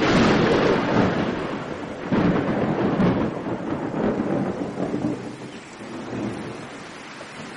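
Thunderstorm: heavy rain with rolls of thunder, loudest in the first second and again about two and three seconds in, then easing to steadier rain toward the end.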